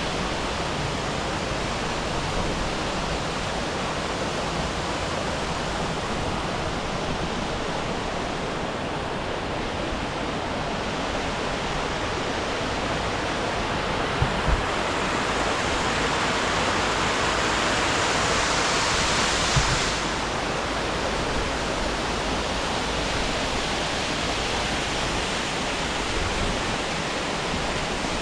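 Steady rush of a waterfall, an even full hiss of falling water. It grows louder and brighter for a few seconds just past the middle, with a couple of brief low knocks.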